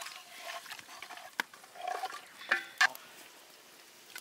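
A metal spatula stirring chicken curry in a metal pot over a wood fire, with a few sharp clicks of metal against the pot about a second and a half apart.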